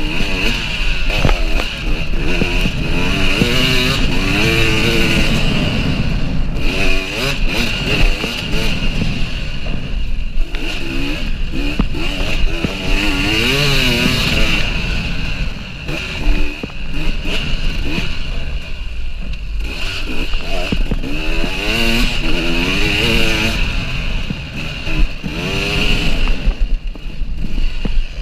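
KTM EXC 300 two-stroke enduro motorcycle engine being ridden hard. Its pitch rises and falls again and again as the rider opens the throttle, shifts and backs off for turns and jumps.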